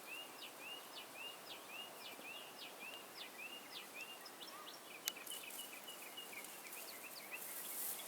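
A bird calling over and over, short chirps about twice a second that turn flatter and quicker about halfway through, over a faint outdoor hiss. One sharp click about five seconds in.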